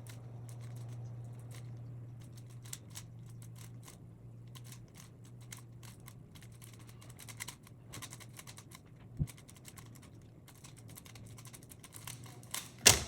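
3x3 Rubik's cube being turned quickly during a timed solve: a rapid, irregular clicking of the layers, over a steady low hum. A loud knock comes near the end.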